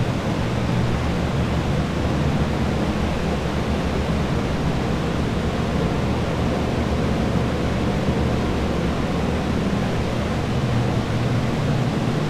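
Water-damage drying equipment running steadily: a Phoenix R175 dehumidifier and air-mover fans blowing, an even rush of air over a low hum.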